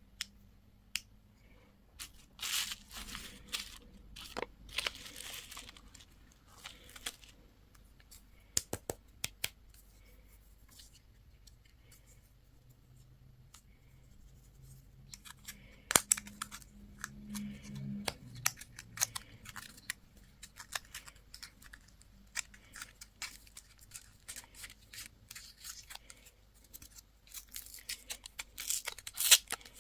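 Candy packaging being torn open and crinkled, in irregular rustling bursts with sharp little clicks and taps, busier near the end.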